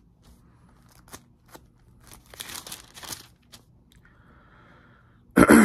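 Pages of a Bible being turned: paper rustling for about a second, with a few light clicks before it.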